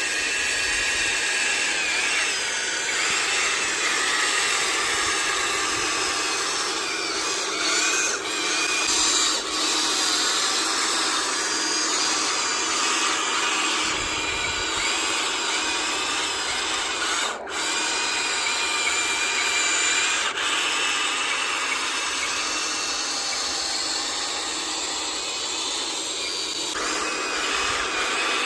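Small electric motors and gearboxes of radio-controlled construction models whining, their pitch wavering up and down as the machines work.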